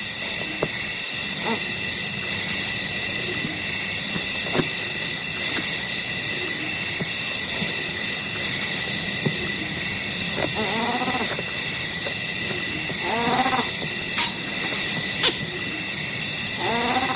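A steady night chorus of insects, a high-pitched trilling that holds throughout. Over it an animal gives three short series of quick, rising-and-falling calls, about ten, thirteen and seventeen seconds in.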